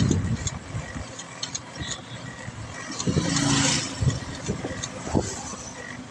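Road traffic heard from a moving bicycle, with wind buffeting the microphone in uneven low thumps. A motor vehicle engine swells up and passes about three seconds in.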